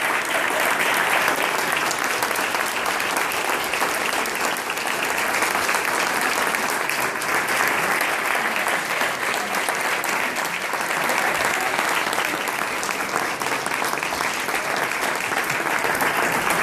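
Audience applauding, a dense, steady clapping that keeps up throughout.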